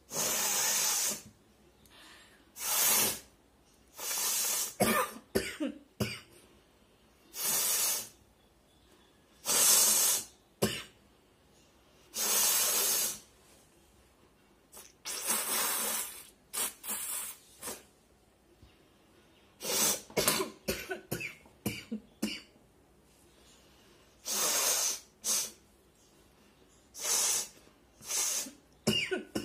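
A person blowing their nose hard again and again: over a dozen short, forceful blasts of air through the nose, each about half a second to a second long, one to three seconds apart.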